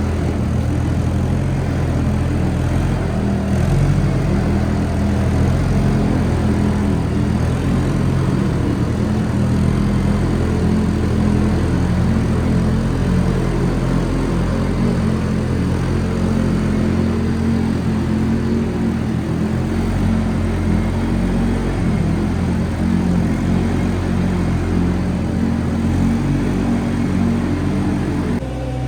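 A farm machine's engine running steadily at an even speed, a low hum with a constant pitch.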